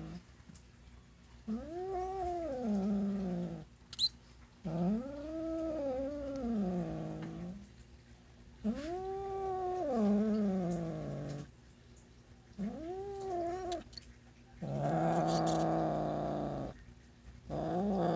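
A tabby-and-white cat with a caught mouse in its mouth giving about six long, low, drawn-out yowls, each rising and then falling in pitch, with short pauses between; the possessive yowl of a cat guarding its prey. A brief sharp click sounds about four seconds in.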